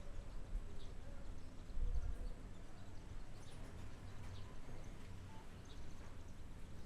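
Outdoor neighbourhood ambience: a steady low wind rumble, swelling briefly about two seconds in, with scattered short bird chirps over it.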